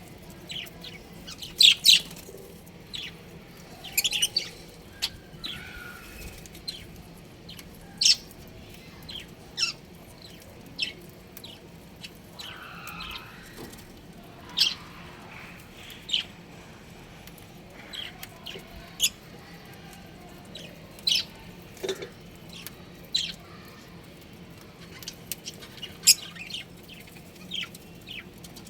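Budgerigars chirping: short, sharp, high chirps about once a second, with a few softer warbling notes in between.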